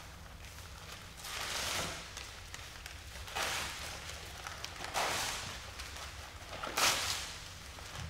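Sheets of manuscript paper being torn by hand, four separate rips spaced a second or two apart, the last the loudest.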